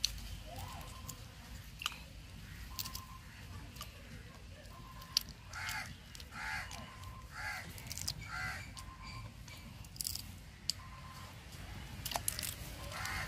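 Raw crabs being cleaned by hand: small cracks, snaps and tearing as the shells are pried off and the bodies broken apart. About halfway through a crow caws four times, roughly a second apart.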